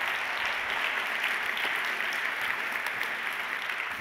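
A conference audience applauding steadily at the end of a talk.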